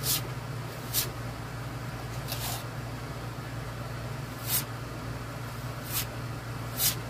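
Short scraping strokes of a business card drawing putty across a wooden radio cabinet, about six at uneven intervals, over a steady low hum.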